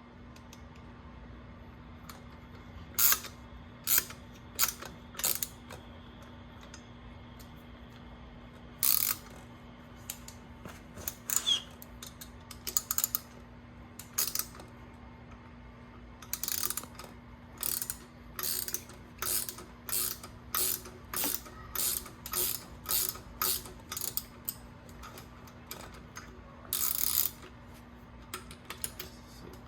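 A 17 mm pass-through ratchet wrench clicking in short rasps as it spins the top nut down onto a rear strut's shaft, the shaft held still with a 5 mm Allen key. A few scattered strokes come first, then a steady run of about one and a half strokes a second through the middle, and one more near the end.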